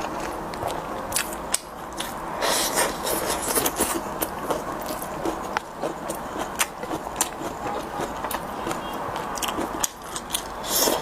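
Eating sounds: chewing, with many short, sharp clicks and scrapes of utensils, over a steady background hiss.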